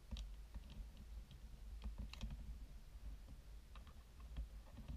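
Faint, irregular clicks and taps of 3D-printed plastic ball-jointed doll parts being handled while they are strung with cord, with a small cluster of clicks about two seconds in.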